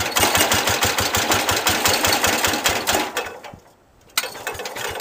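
Cub Cadet 107's Kohler K-241 ten-horsepower single-cylinder engine being cranked over on a cold start with the choke on, turning over with a fast, even chugging but not yet catching. The cranking dies away after about three and a half seconds, and a second attempt starts abruptly about a second later.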